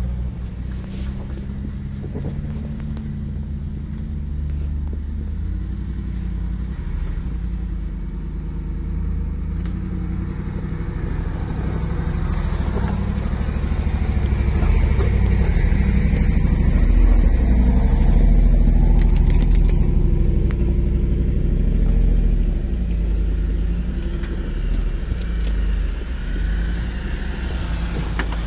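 Off-road 4x4 engine running as the vehicle drives an off-road track. The engine note wavers up and down with the throttle over a heavy low rumble, and it grows louder about halfway through.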